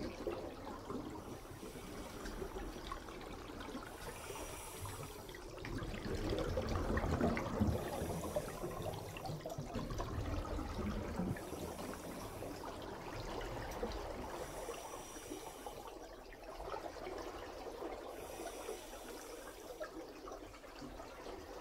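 Water trickling and bubbling in a saltwater reef aquarium as a steady wash, with a fainter high hiss that swells and fades every few seconds.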